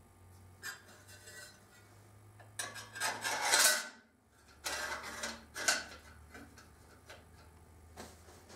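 Thin tack-welded sheet-metal pieces clinking and scraping against each other and the bike's front as they are handled and fitted. A small clink under a second in, then two bouts of light metallic clatter, the louder about three seconds in and another about five seconds in.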